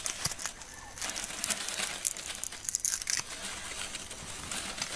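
Irregular crinkling and crunching foley, as of dry leaves and foliage being crushed, made to stand in for chimpanzees rushing through leaf litter and branches.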